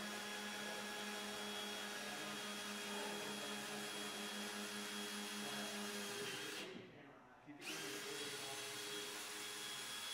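Handheld power drill boring through plywood with a twist bit: a steady motor whine that stops a bit over six seconds in, then starts again about a second later.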